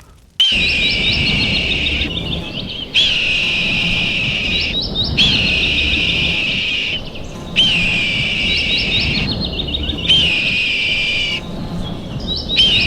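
Bird-like whistled calls, each a held whistle with quick chirps above it, repeating in a regular, near-identical pattern about every two and a half seconds.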